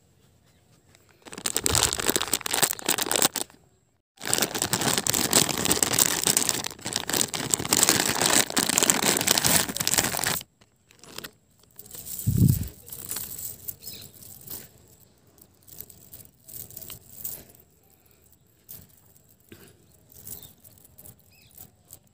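Plastic packing bag crinkling and being torn open in two long spells, then gold-plated metal necklaces clinking and jingling as they are handled, with one soft thump about halfway through.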